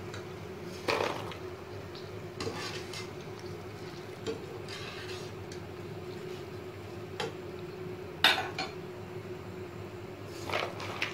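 Crisp fried gram-flour boondi being handled and stirred in a plastic tub, with a few sharp clicks and knocks against the container, the loudest about eight seconds in. A steady low hum runs beneath.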